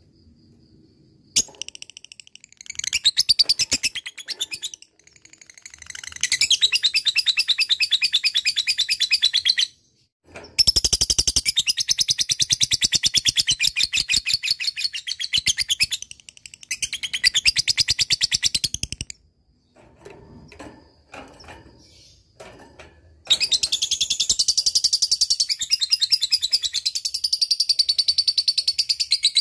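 Lovebird singing its long 'ngekek' chatter: fast runs of high, shrill, rapidly repeated notes lasting several seconds each, broken by short pauses and a few softer chips.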